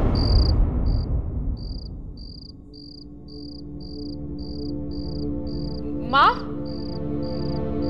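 Crickets chirping in a steady rhythm, about two chirps a second, over a low sustained music drone. The tail of a loud booming hit fades out over the first two seconds, and a brief rising swish sounds about six seconds in.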